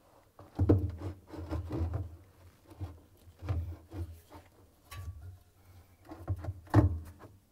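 Heavy washer counterweight being shifted and knocked against the tub as it is worked onto its locating pins: a string of irregular dull thumps and rubbing, the loudest about a second in and near the end.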